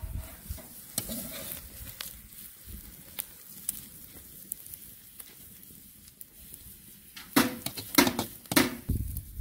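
Slotted metal spatula stirring sliced onions frying in a steel wok: light scrapes and taps against the pan over a faint sizzle, then three louder knocks near the end.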